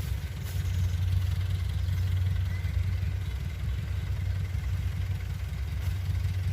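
Kubota DC-70 Plus combine harvester's diesel engine running at a steady, even speed with a low drone.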